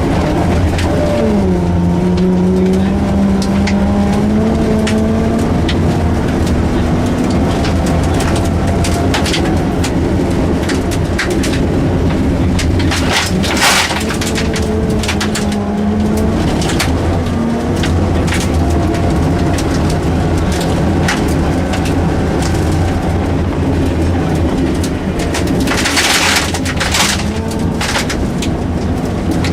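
Rally car engine heard from inside the car at speed on a special stage, its pitch climbing and dropping again and again through gear changes and lifts, over a steady low rumble. Sharp clicks and rattles throughout, with two brief louder rushes of noise, one about halfway and one near the end.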